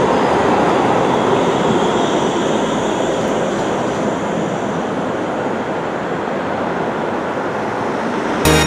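Low-floor electric city tram running past at street level: a steady rushing of wheels and running gear, with faint steady high tones over it. Music comes in at the very end.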